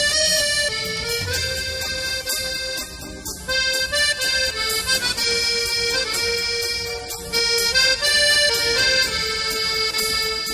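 Instrumental background music: a melody of held, reedy notes that change pitch about once a second, with no singing.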